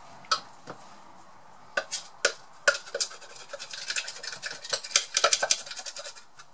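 A utensil scraping and tapping inside a small blender's jar, clearing pastry mix out into a bowl: a few scattered taps at first, then a quick, busy run of scrapes and clicks from about three seconds in.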